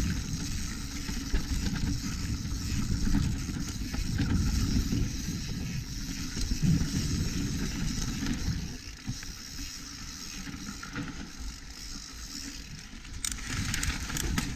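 Mountain bike riding fast over a dirt trail: steady rumble of tyres and wind on the microphone, with constant rattling over the rough ground. It gets quieter a bit over halfway through.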